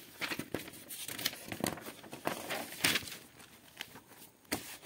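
Paper rustling and crinkling as notebook pages are handled, in a string of short, irregular rustles.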